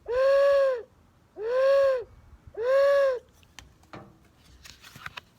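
Three owl hoots, each a single 'hoo' rising then falling in pitch, a little under a second long and about one every 1.3 seconds, followed by a few faint clicks.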